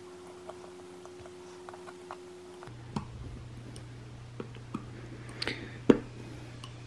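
Tweezers picking and scraping old adhesive out of the lens recess of a GoPro Hero 8: faint small clicks and scratches, with a sharper tick about three seconds in and the loudest near six seconds.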